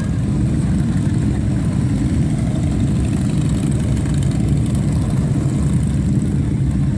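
A procession of large cruiser and touring motorcycles riding past in a steady stream, making a continuous loud, low engine noise.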